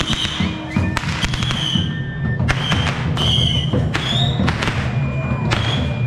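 Festive procession music with firecrackers going off, a string of sharp bangs several times over the music.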